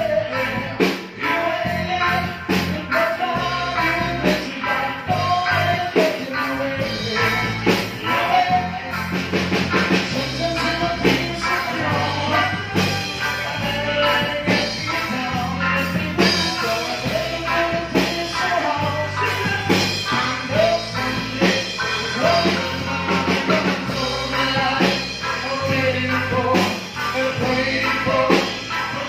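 A live band playing a song: male vocals over electric guitar, bass notes and a drum kit keeping a steady beat.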